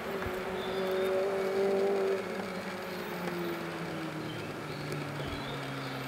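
Rally car engine on the stage out of sight: a steady high engine note for the first two seconds, then the note falls and fades through the rest. Faint high chirps sound above it.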